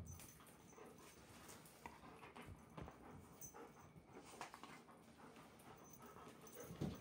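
Near silence, with a German Shepherd's faint panting and soft, scattered scuffs.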